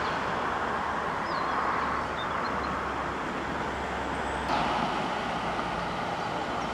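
Car engines running at low speed as cars pull away and pass, over a steady street noise. The sound shifts abruptly about four and a half seconds in.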